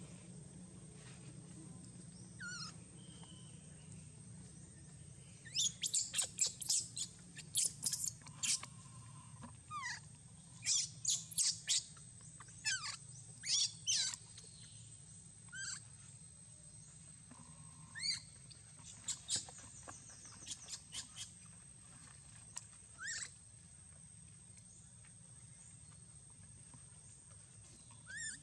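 Newborn long-tailed macaque squeaking: short, high-pitched squeaks, many in quick succession in the first half, then scattered ones with longer gaps. A steady thin high whine runs underneath.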